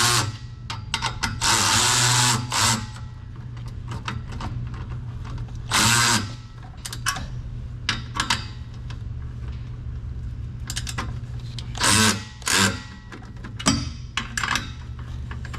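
Tools tightening a fastener under a car: several short bursts of tool noise, the longest in the first few seconds, with scattered metallic clicks between them over a steady low hum.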